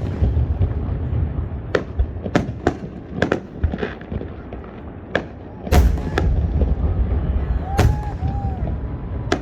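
Fireworks going off: about a dozen sharp cracks and bangs at irregular spacing. Two louder booms, at the start and about six seconds in, are each followed by a low rumble.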